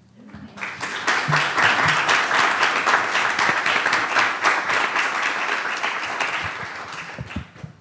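Audience applauding: the clapping builds in about half a second and dies away near the end.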